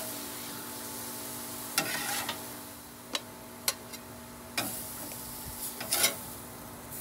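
Chicken and vegetables sizzling on a Blackstone propane flat-top griddle, with several sharp scrapes and taps of a metal spatula against the steel cooktop as the food is lifted off.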